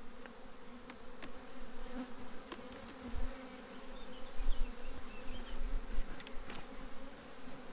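A colony of honeybees buzzing steadily around an opened hive, a constant drone. A few light knocks and some low bumps come partway through.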